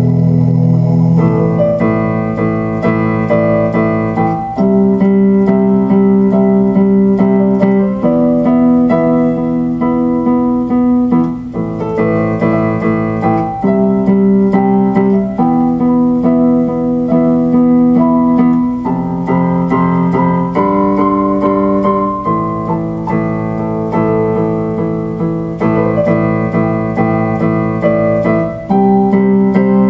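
Keyboard music in an electric piano sound: slow, held chords that change every second or two.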